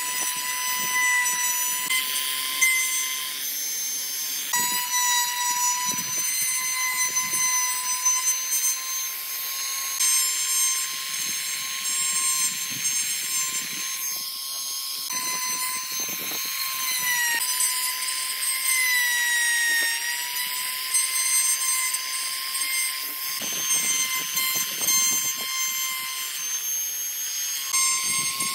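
Handheld trim router running with a steady high whine as its bit cuts shallow recesses into a pine board. The pitch sags briefly twice past the middle as the bit takes load, and the whine breaks off for a moment a few times.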